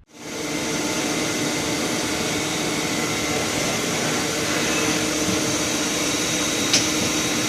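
Steady machine-shop hum from running machinery around the Benzinger lathe, with several steady tones over a noisy hiss. A short sharp click near the end.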